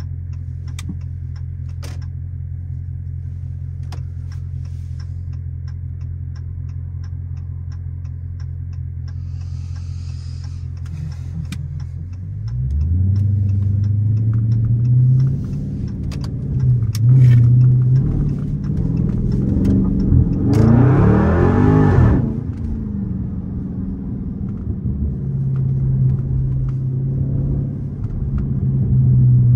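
Dodge Charger Scat Pack's 392 HEMI V8, heard from inside the cabin. It idles steadily for about twelve seconds, then revs as the car pulls away. The loudest part is a hard rising acceleration about two-thirds of the way through, after which it settles to a steady run and picks up again near the end.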